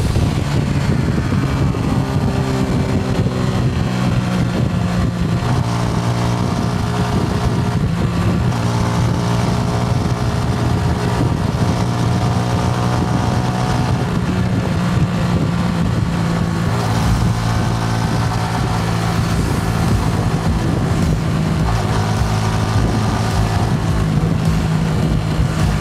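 Suzuki Gixxer SF's single-cylinder engine and exhaust under way. The engine note falls over the first couple of seconds, then runs steady, with several changes in pitch as the revs shift.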